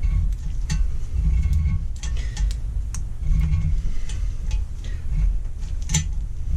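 Irregular metallic ticks and clicks of a thread tap being turned through a drilled-out bolt hole in cast iron, over a steady low rumble.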